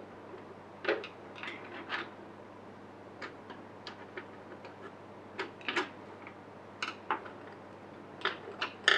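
Wooden watercolour pencils being picked up, sorted and set down on a tabletop: irregular light clicks and taps of pencils against each other and the table, with a few louder ones about a second in and near the end.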